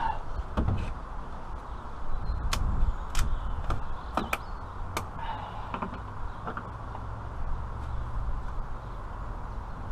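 A few sharp clicks and knocks from a gloved hand handling a plastic fluid container and its cap, with light rustling, over a steady low rumble.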